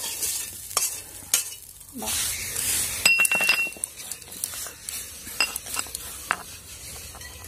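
Metal cooking utensils clinking and scraping as a spatula scrapes fried raw-mango pieces out of a metal wok into a steel bowl, with scattered sharp clinks and one that rings briefly about three seconds in.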